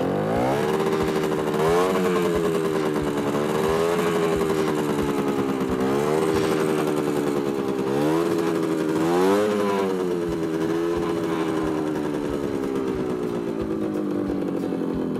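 Simson Spatz SR4-1 moped's 50 cc single-cylinder two-stroke engine running just after starting. It comes in suddenly, is revved up and down several times, then slowly drops back toward idle near the end.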